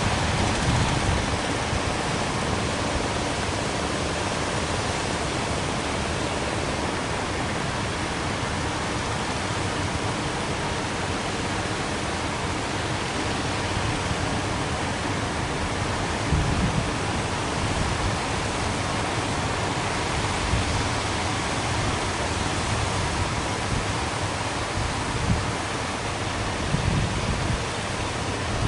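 Surf on the beach: a steady wash of breaking waves, with a few short low rumbling surges in the second half.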